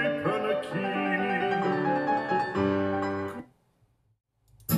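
Piano music played through Edifier R1280T bookshelf speakers; it stops about three and a half seconds in. About a second of silence follows, then acoustic guitar music starts right at the end.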